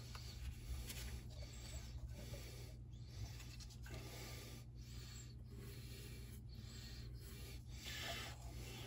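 Faint background: a steady low hum with soft, uneven rustling and handling noise.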